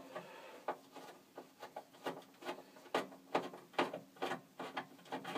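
A screwdriver backing out a ground screw from the Yamaha DX7's metal chassis: a string of small, irregular clicks and scrapes, about two or three a second.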